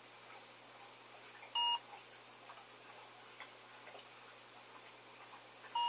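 Barcode-scanner app on a tablet beeping twice, about four seconds apart, each short beep confirming that a DVD case's barcode has been read. Faint ticks and clicks in between.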